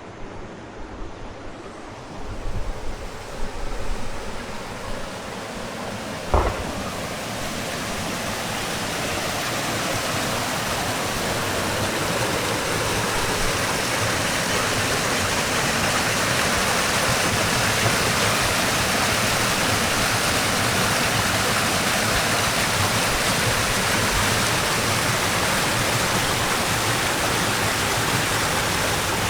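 Spring-fed stream water rushing, growing louder over the first several seconds and then holding a steady rush. A single short knock comes about six seconds in.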